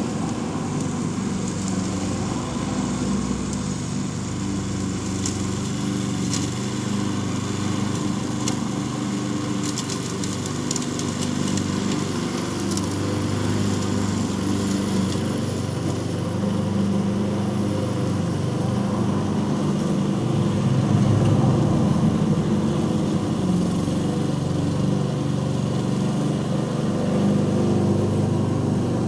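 Small lawn mower engine running steadily under load while mowing, with a steady hum that grows a little louder past the middle.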